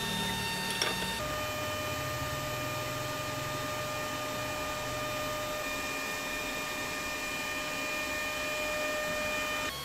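Steady electrical whine and hum of several pitches over background noise. It changes abruptly about a second in and again near the end, and a single faint click comes just before the first change.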